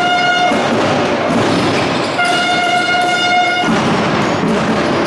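A horn sounding long, steady blasts at one pitch: one ends about half a second in and another is held for about a second and a half from about two seconds in, over constant hall and court noise.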